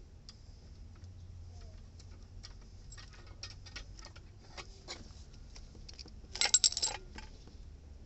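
Small metal clicks and clinks of a refrigerant-pipe flaring tool being handled, with a brief, louder jangling rattle of metal on metal about six and a half seconds in.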